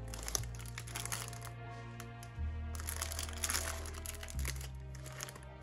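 Background music with a bass line that changes note every couple of seconds, over the crinkling of the plastic shrink-wrap on a tablet case being handled.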